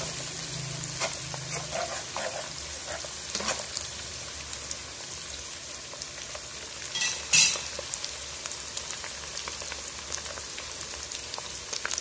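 Pounded chili paste sizzling as it fries in oil in a non-stick wok, with a steady hiss and crackle, and a spatula stirring it in the first few seconds. A short sharp clatter about seven seconds in is the loudest sound. The paste is being fried until the oil separates out.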